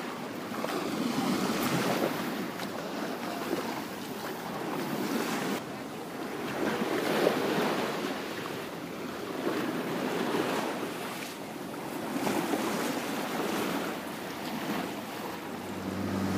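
Small waves breaking and washing onto a beach, the surf swelling and fading every two or three seconds.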